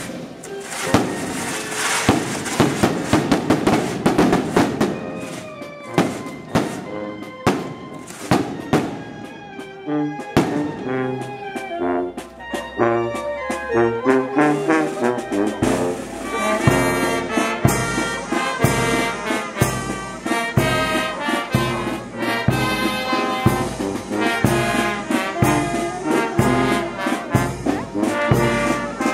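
Brass band with sousaphone and bass drum playing, the drum setting a steady beat from about halfway through. A dense run of sharp cracks fills the first few seconds.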